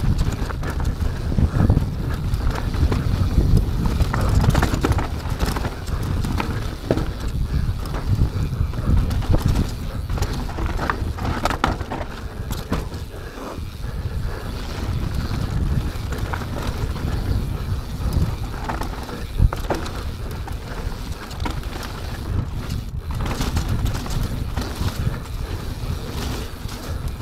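Mountain bike rolling down a dirt trail: a steady rumble from the tyres, with the bike rattling and knocking many times over bumps.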